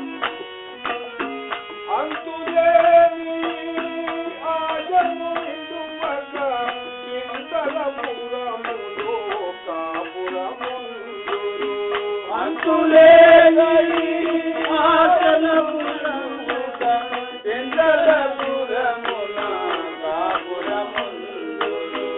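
Devotional bhajan music: a tabla plays a steady rhythm under a melodic line over a sustained drone, swelling louder about thirteen seconds in.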